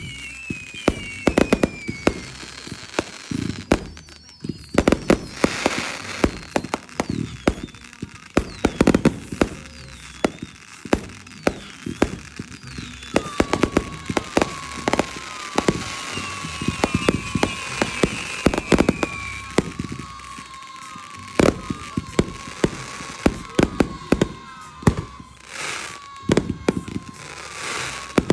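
Consumer fireworks going off: a dense string of sharp bangs and crackling pops, with short falling whistles repeating through the second half.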